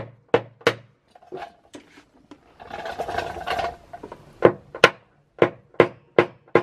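A paintless dent repair tap-down tool tapping on a car's front guard, a run of sharp taps about two to three a second, knocking down the high spots around a pulled dent. A brief rubbing noise comes about halfway through, between the runs of taps.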